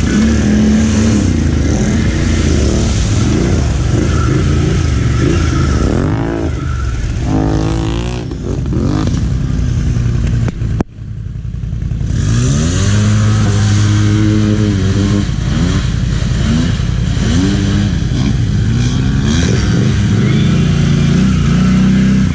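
ATV engines revving, their pitch rising and falling again and again. The sound breaks off abruptly for an instant about halfway through, then picks up again.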